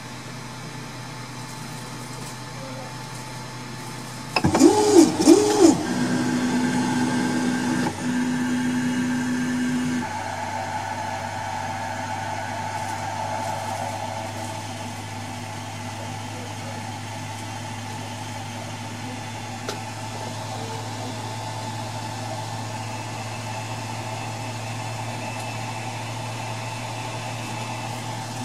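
Ender 3 Pro 3D printer, driven by a BigTreeTech SKR Mini E3 v1.2 board, starting a print. About four seconds in, its stepper motors whine up and down twice, then hold a steady whine for about four seconds as the axes home. After that the printer settles into a steady fan hum while it waits to preheat.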